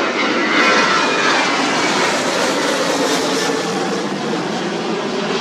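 Jet engines of a Boeing 737 airliner climbing out after takeoff and passing overhead: a loud, steady rushing noise that slowly fades as the aircraft moves away.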